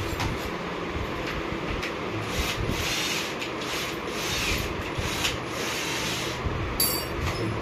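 Rubbing and scraping from hand work with a tool at a bicycle's crank and pedal during assembly, with a few light clicks.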